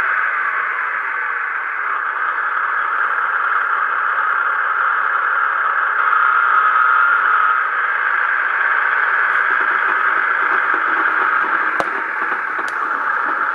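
Sound decoder in a Hornby Class 153 Sprinter model playing the Legoman Biffo diesel engine sound: the engine running steadily, thin and tinny through the model's small speaker. Two faint ticks come near the end.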